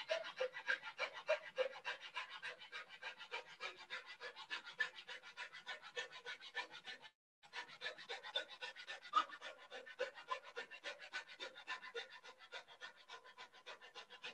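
Fine-toothed coping saw cutting wooden crown moulding by hand in quick, steady back-and-forth strokes, making an even rasp with a short break about seven seconds in.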